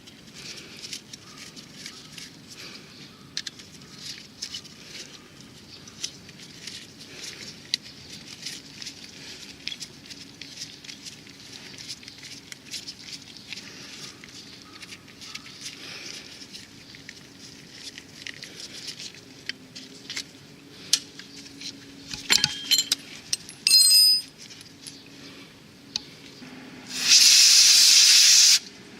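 Light clicks and clinks of small parts and tools being handled, with a short sharp burst about two thirds of the way through. Near the end a loud spray hiss lasts about a second and a half and then cuts off.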